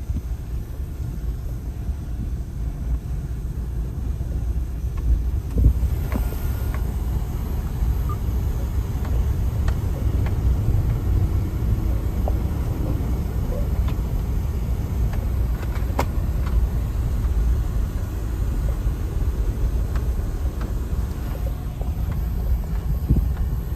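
Suzuki Every kei van driving, a steady low engine and road rumble with a few faint clicks.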